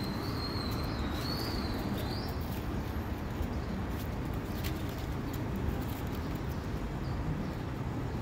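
Outdoor street ambience: a steady low background rumble, with a thin, wavering high whistle-like call in the first two and a half seconds and a few faint scattered ticks.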